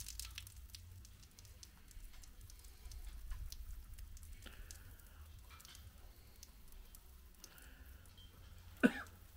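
Faint pattering and scattered ticking of penetrating primer being sprayed onto a plastered wall, over a low wind rumble on the microphone. Near the end a short, sharp squeak falls in pitch.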